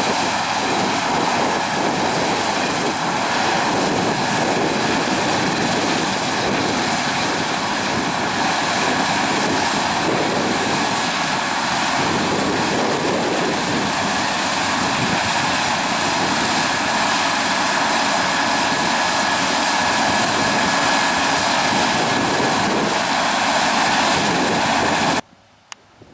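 Heavy harvest machinery running steadily: a loud, even engine and mechanical drone. It cuts off suddenly about a second before the end.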